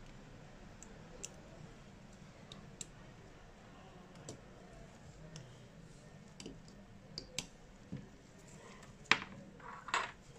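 Small sharp clicks and taps of repair tools on a smartphone's parts, scattered and spread out, with one louder click about nine seconds in and a short clatter just before the end.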